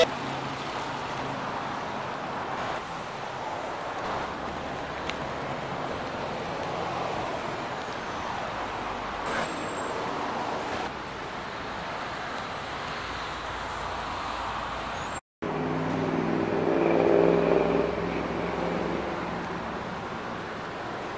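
Ferrari 458 Spyder's V8 running at idle under a steady hiss. After a brief cut about fifteen seconds in, the engine note comes through more clearly, swells for a couple of seconds and settles back.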